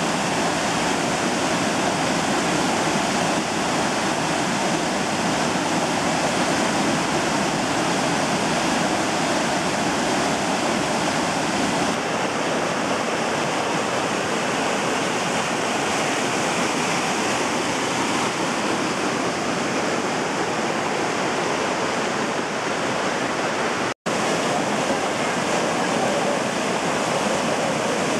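Mountain river cascading over granite ledges in a series of small waterfalls: a steady, loud rush of white water. The sound cuts out for an instant near the end.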